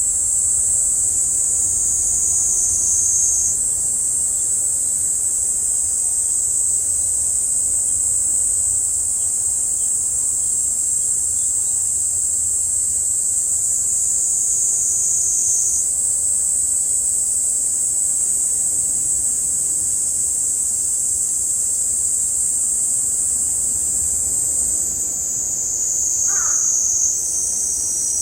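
A chorus of cicadas shrilling steadily with a continuous high-pitched drone, its pitch shifting slightly a few times.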